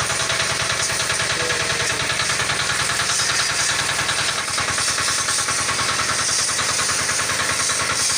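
Engine of a car-washing pressure-washer machine running steadily, with a fast, even beat of firing pulses.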